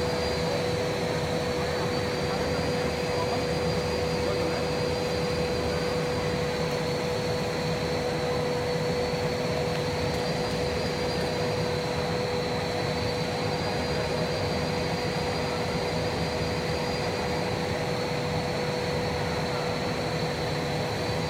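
Air bubble sheet extrusion line running: a steady mechanical hum with a constant mid-pitched whine and a fainter high tone above it.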